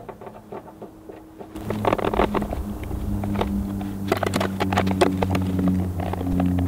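Metal hand tool clicking and scraping on heavy aluminum service cable and the terminals of a meter base while the cable is bent and seated, getting busier and louder about a second and a half in. A steady low hum runs underneath.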